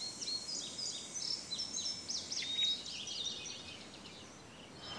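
Small birds chirping in quick, overlapping high calls, busiest for the first three seconds or so and thinning out near the end, over faint background noise.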